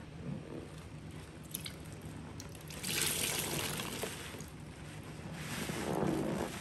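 Bleach solution trickling and splashing, swelling twice: about three seconds in and again near the end.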